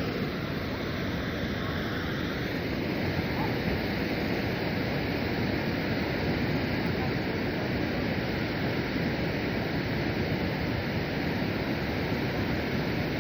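Hand-held tezutsu bamboo-tube firework spewing a fountain of sparks with a steady rushing hiss.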